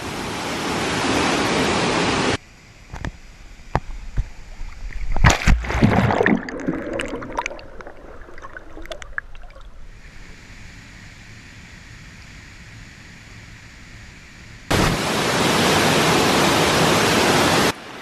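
Waterfall pouring into a pool: an even rushing roar that stops abruptly after about two seconds and comes back abruptly about three seconds before the end. In the quieter stretch between, a faint hiss and a cluster of sharp knocks about five to six seconds in.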